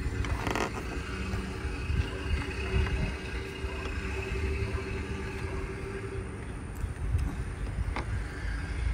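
Steady low rumble, with a faint steady hum for most of the stretch and a couple of light plastic clicks, near the start and near the end, as a headlight retaining clip is handled.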